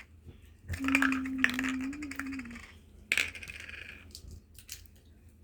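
Light clinks and clicks, like small hard things knocking together, with a voice humming one held note over them for about two seconds from about a second in; a short scraping rustle follows about three seconds in.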